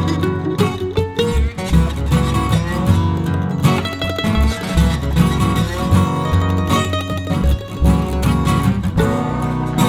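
Background music led by plucked guitar, with a steady bass line.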